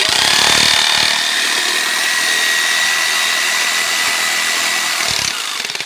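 Electric jigsaw cutting through wood: a steady motor whine over the buzz of the blade. It starts suddenly and winds down about five seconds in.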